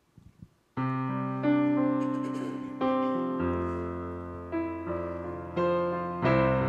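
Digital keyboard playing a slow piano introduction to a worship song: held chords that change about every second, beginning just under a second in after a few faint clicks.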